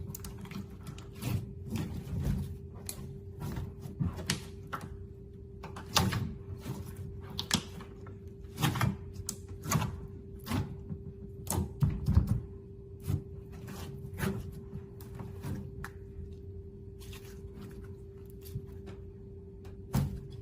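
Mixed clear slime being squished and pressed by hand, making irregular wet clicks and pops, some much louder than others. A steady hum runs underneath.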